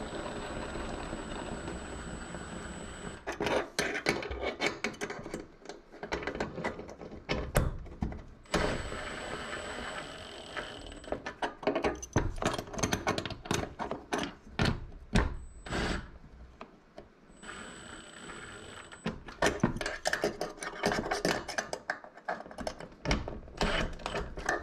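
Metal-on-metal clicks, clanks and scrapes of a wrench turning nuts on the bolts through a steel bracket plate, tightening a case down onto a roof-rack crossbar, with a few short pauses between bursts of turns.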